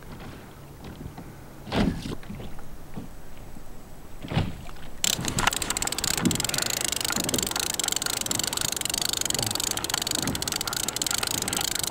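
Conventional fishing reel being cranked fast while reeling in a hooked fish: a dense, rapid clicking rattle that starts about five seconds in. A couple of knocks come before it.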